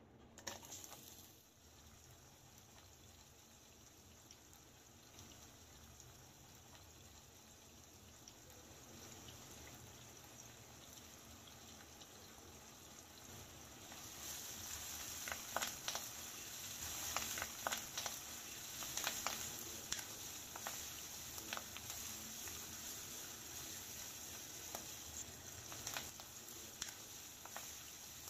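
Sliced onion dropped into hot oil in a nonstick wok, setting off a soft sizzle that slowly grows louder. From about halfway, a spatula stirring against the pan adds scrapes and sharp clicks over a stronger frying sizzle.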